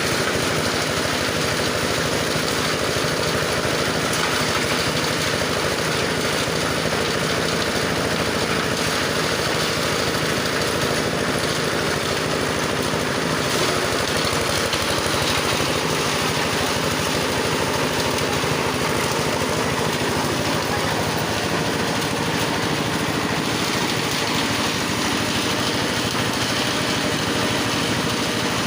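Motorised grass chopper (chaff cutter for livestock fodder) running steadily, an even engine-like drone that does not change throughout.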